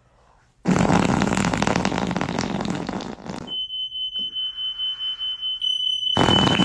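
Sphynx cat purring loudly right against the microphone. The purr eases off about halfway and comes back loud near the end. A steady high-pitched electronic tone starts about halfway and carries on.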